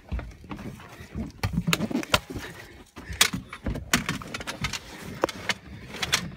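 Irregular knocks, clicks and clatter of gear being handled against a boat, with some dull low thuds.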